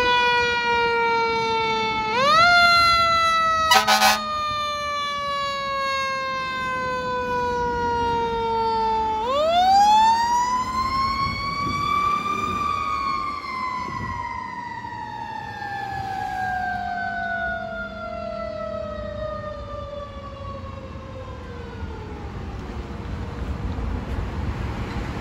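Fire truck's mechanical siren winding up and slowly coasting down in pitch, three times. The last wind-up is the longest and fades over about ten seconds. A short horn blast sounds about four seconds in, over the low rumble of the truck's engine.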